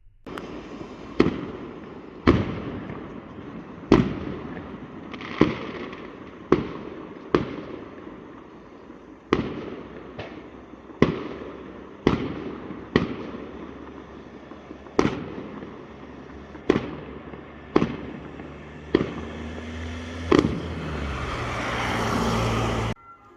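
Fireworks going off: a string of sharp bangs, roughly one a second and irregularly spaced, each trailing off over a steady crackling haze. Near the end a rising rushing noise builds and then cuts off suddenly.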